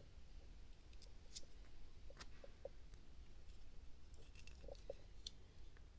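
Faint, scattered clicks and light metal handling sounds from a Leatherman Wave+ multitool as its fold-out tools are handled, closed and opened.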